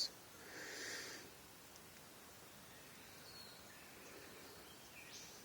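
Faint rainforest ambience. A soft rustling hiss comes about half a second in, then a few faint, short bird chirps, one in the middle and one near the end.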